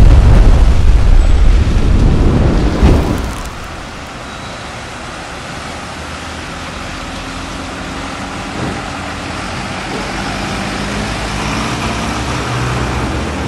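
Cars and a minibus driving through a flooded street, their tyres hissing and splashing through standing water over a low engine hum. A loud low rumble fills the first three seconds or so. The splashing and engine sound swell again near the end as the bus passes close by.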